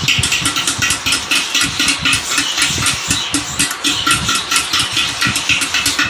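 A small engine running steadily, an even rapid pulse of about eight beats a second.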